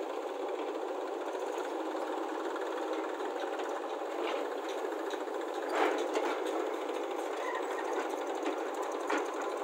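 Diesel tractor engine running steadily with a fast, even clatter. A few sharper knocks come through, the loudest about six seconds in.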